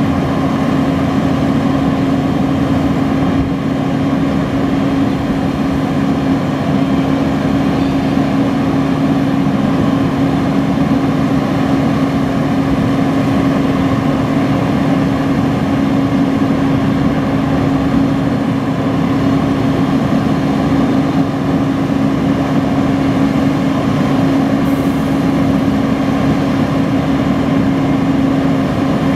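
2007 Peterbilt 340 crane truck's diesel engine running steadily to drive the crane hydraulics as the boom swings, with one steady droning tone over the engine noise.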